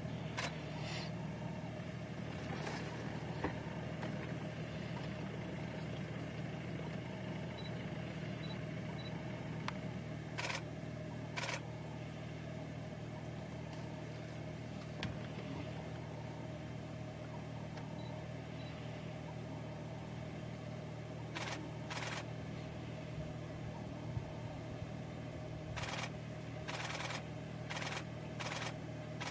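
Steady hum of an idling vehicle engine, with camera shutters clicking now and then and in a quick run near the end.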